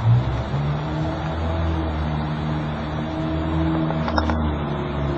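A motor running with a low, steady hum that comes in suddenly at the start, with a couple of faint clicks about four seconds in.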